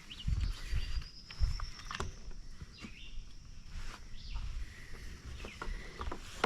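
Scattered light clicks and knocks of small hand work on a string trimmer, over uneven low rumbles and faint outdoor ambience.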